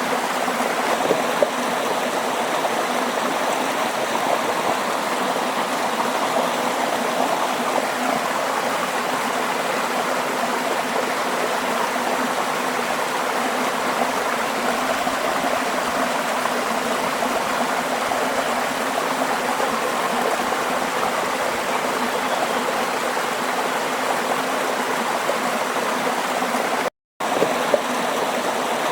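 Water flowing steadily in a stream, a continuous even rush and burble. It cuts out completely for a split second near the end.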